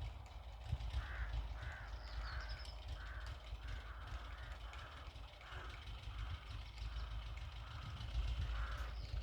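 Crows cawing in a quick series of about a dozen calls, roughly two a second, over a steady low rumble.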